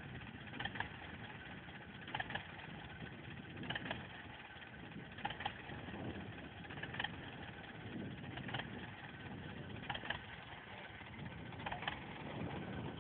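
Tractor engine idling, with a sharp click recurring about every one and a half seconds.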